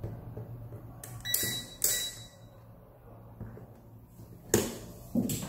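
Single electronic beep from a digital multimeter, a steady high tone lasting just under a second, set between clicks and knocks as the meter is handled on the bench. A sharper knock about four and a half seconds in is the loudest sound.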